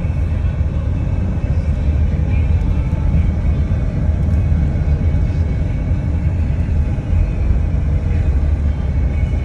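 A vehicle driving on a sandy dirt track, heard from inside the cabin: a steady low rumble of engine and tyres.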